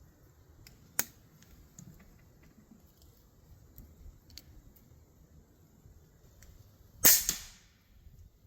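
AEA Challenger Pro .25 calibre PCP air rifle firing a 52-grain boat-tail slug: a single loud shot near the end, with a second crack right after it and a short ring. A lighter sharp click comes about a second in.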